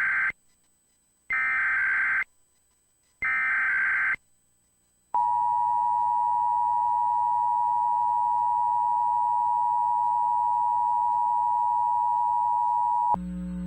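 Emergency Alert System test tones: the warbling SAME header data bursts, each about a second long with a second of silence between them, followed by the two-tone attention signal, a steady dual tone held for about eight seconds that cuts off abruptly near the end.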